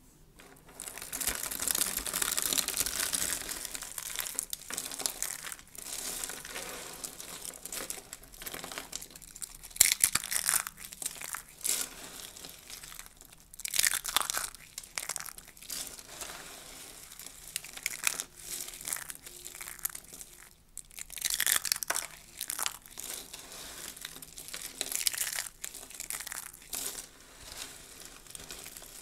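Dry soap curls crunching and crackling as hands crush them into flakes, in irregular bursts of crisp crunches, the sharpest about ten seconds in.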